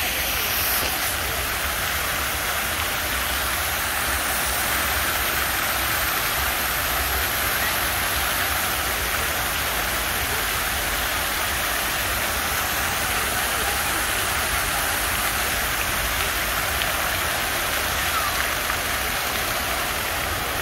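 Large ornamental fountain's many water jets splashing steadily into its basin, an even, constant rush of water.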